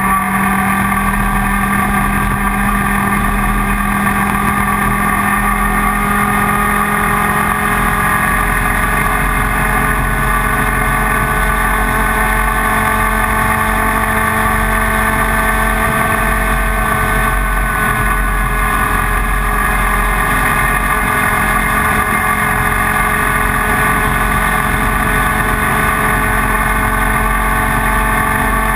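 A racing kart's IAME Leopard 125 cc two-stroke engine running hard at a nearly steady pitch, sagging slightly about two-thirds of the way through.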